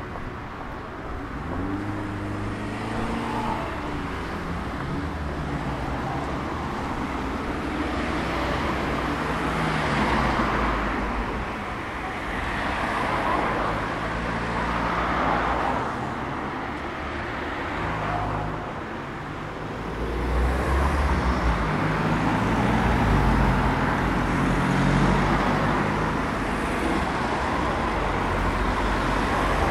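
City street traffic: cars driving past close by, their engines running and the sound swelling and fading as each one passes, louder in the last third.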